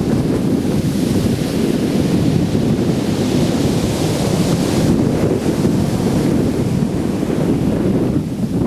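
Strong wind buffeting the microphone in a heavy, continuous rumble over the wash of surf on a beach. The hiss of a breaking wave swells about three seconds in and fades by five.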